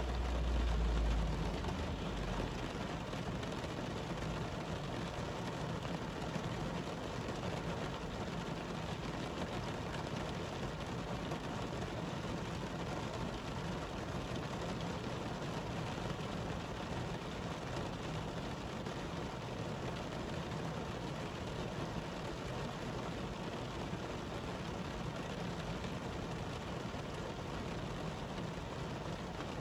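Heavy rain falling on a city street: a steady, even hiss of rain. A low rumble sounds in the first two seconds.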